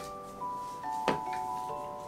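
Background music of held, steady notes, with a single light knock about a second in.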